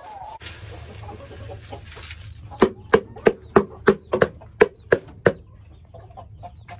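Chicken feed rustling in a scoop and plastic bin, then a hen clucking in a quick run of about ten sharp clucks, roughly three a second, with fainter clucks after.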